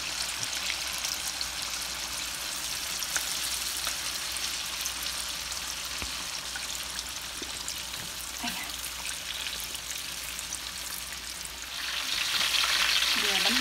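Spring-roll-wrapped banana rolls deep-frying in hot oil in a wok: a steady sizzle with scattered small pops and crackles, growing louder about twelve seconds in.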